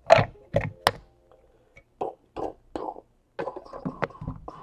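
A run of short knocks and taps from trading cards and their hard plastic holders being handled and set down on a table, thickening into a stretch of clatter and rustling in the last second or so.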